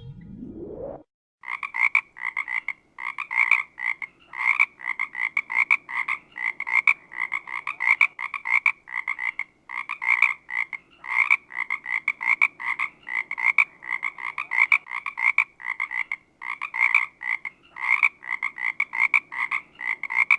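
A brief rising sweep in pitch in the first second, then frogs croaking in a dense chorus: quick pulsed calls in tight clusters, one after another without letup.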